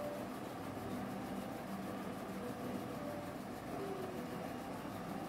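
Steady low background noise: room tone with a faint hum.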